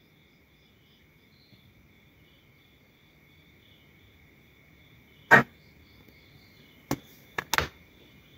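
Four sharp clicks of a Gospell DRM radio's front-panel push buttons being pressed, the first and loudest about five seconds in, then three more close together near the end. Beneath them a faint, steady, high insect chirring, with the radio's speaker silent.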